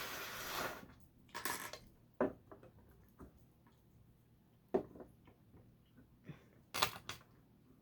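Small plastic Lego pieces clicking and knocking as they are handled and pressed together: a short rustle at the start, then a series of separate sharp clicks at irregular intervals.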